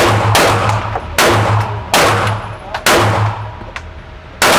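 Five pistol shots from a Smith & Wesson M&P 2.0 Compact, fired roughly a second apart, each followed by a short echoing decay.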